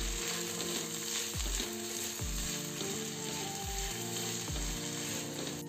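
Mixed vegetables (cauliflower, carrot, capsicum, beans) sizzling in hot oil in a nonstick kadhai as they are stir-fried and turned with a silicone spoon, being half-cooked. Quiet background music with a steady low beat plays underneath.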